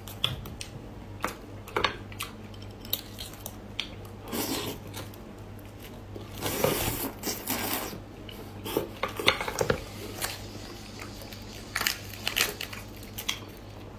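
Langoustine shells cracking and crackling in a series of short sharp clicks as they are peeled by hand, with a wet slurp of the meat being sucked in about halfway through.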